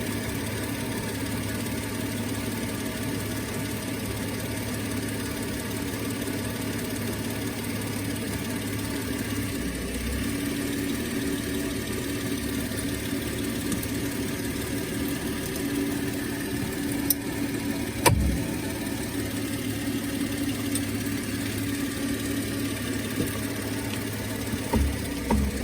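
A vehicle engine idling steadily. A couple of sharp clunks come about two-thirds of the way through, and another near the end.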